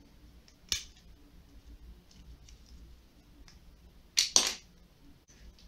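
Plastic clicks from a small drone arm's cover as it is pried off by hand: one sharp click about a second in, then two louder clicks close together near the end.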